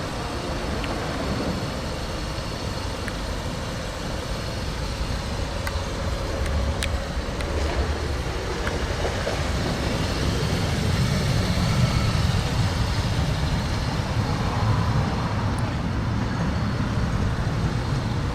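Motor vehicle noise: a steady low rumble with a hiss over it, swelling from about ten seconds in.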